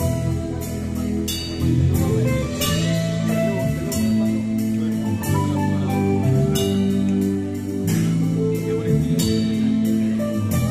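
A string orchestra and rock band playing together in rehearsal: string chords held and changing every second or two, over a steady drum beat.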